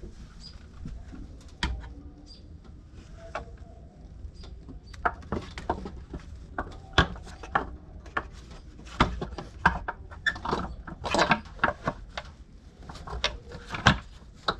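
Plastic fan shroud being worked into place by hand in the engine bay of a 6.4L Powerstroke, knocking, clicking and scraping against the pulleys and surrounding parts. The knocks are scattered at first and come thick and fast in the second half.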